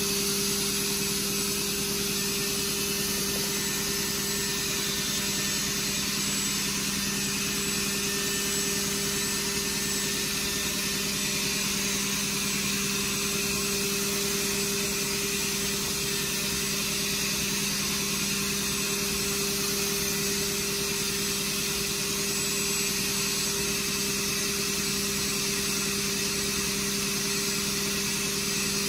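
Fanuc Robodrill CNC milling machine cutting aluminium at high speed with an end mill in light adaptive (trochoidal) clearing passes: a steady hum under a broad, even hiss, unchanging.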